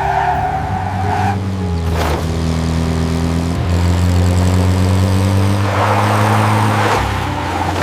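Car engine running steadily while driving, its low pitch shifting slowly up and down.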